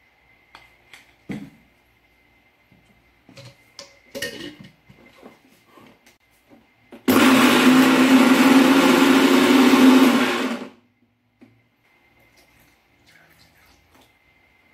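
Countertop mixer grinder blending a smoothie in its stainless steel jar. The motor runs loud and steady for about three and a half seconds, then stops abruptly. Before it, light clinks of a spoon in the jar.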